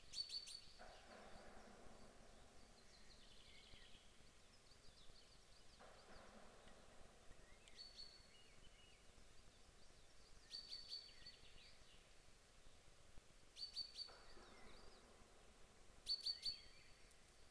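Faint songbird song: short, high phrases repeated every few seconds, over soft swells of background noise.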